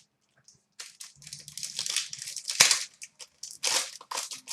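Crinkling and rustling of trading-card pack wrappers and cards being handled, in irregular bursts with one sharp click midway.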